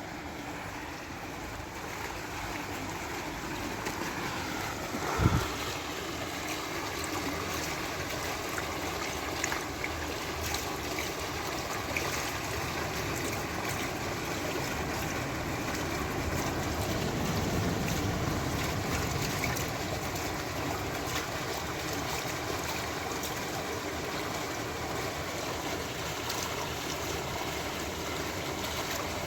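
Water flowing steadily, an even hiss of running water. A single short thump about five seconds in is the loudest moment.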